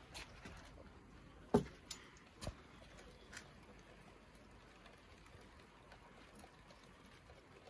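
A metal door being handled: a few short clicks and knocks, the loudest about a second and a half in and three lighter ones over the next two seconds, then a faint steady background.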